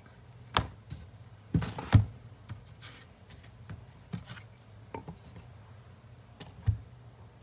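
A wooden strip and a flat panel being set down and positioned on a cardboard-covered bench: a series of knocks and taps, the loudest about two seconds in, over a faint low hum.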